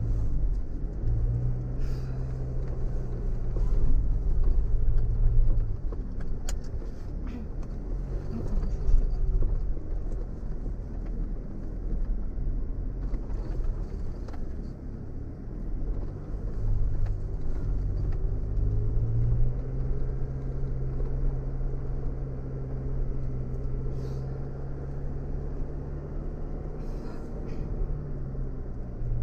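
Car engine running at low revs while crawling over a rough off-road track, its pitch rising and falling with the throttle over a steady low rumble. A few short knocks and clatters break in now and then.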